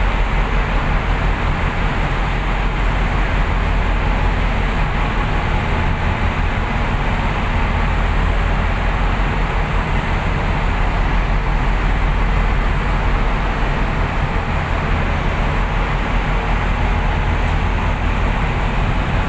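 Steady low drone of a passenger ferry underway, the ship's engines humming under an even rushing noise of wind and water.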